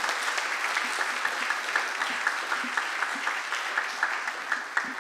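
Audience applauding: many hands clapping steadily, with a few louder single claps standing out.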